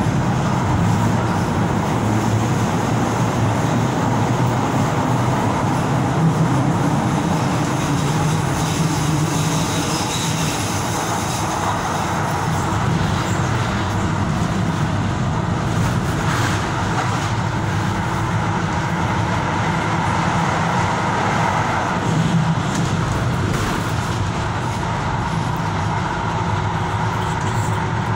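Tyne and Wear Metro train running along the line, heard from inside the car: a steady rumble of wheels on rail and running gear, with a faint steady whine.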